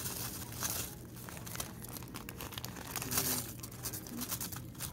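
Plastic brown sugar bag crinkling in irregular bursts as brown sugar is poured from it into a glass bowl.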